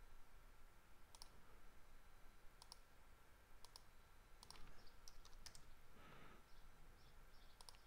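Computer mouse buttons clicking quietly: scattered single clicks and quick pairs over faint room tone with a thin steady hum.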